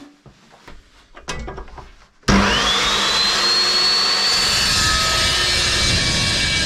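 A few faint handling knocks, then about two seconds in the Evolution metal chop saw's motor switches on with a rising whine that climbs to full speed within a second or two and settles into a steady high-pitched run.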